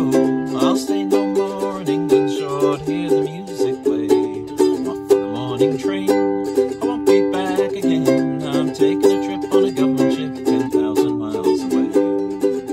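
Background music: a plucked string instrument picking out a folk tune over a moving bass line.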